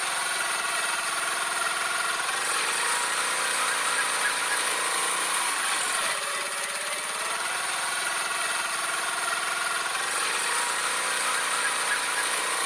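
Motor scooter engine sound effect running steadily, its pitch slowly rising and falling in a repeating pattern.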